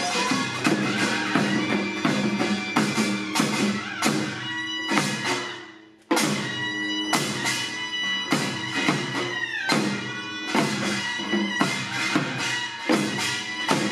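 Korean traditional music accompanying a sogo dance: steady drum strokes under a held, reedy wind melody that bends down in pitch in places. About halfway through, the music fades out and cuts straight back in at full level.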